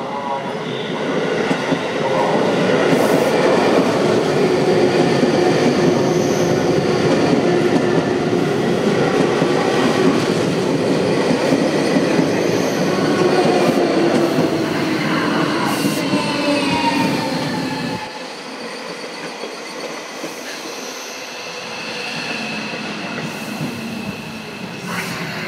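Seibu 6000 series ten-car electric train passing close, with wheels on rail and the whine of its refurbished traction equipment, whose pitch falls as the train slows. The sound drops sharply about 18 seconds in, leaving a fainter running sound as the last cars go by.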